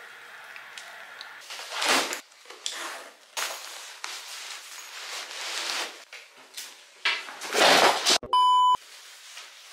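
Black nylon backpack being packed and handled, with a run of rustling, scraping bursts of fabric and zippers. About eight seconds in comes a short, loud electronic beep of about half a second.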